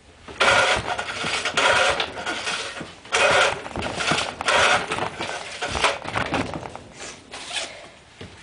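Recoil pull-starter of a small 2 hp tiller engine yanked about five times in quick succession on a cold start. The engine cranks with each pull but does not catch and run.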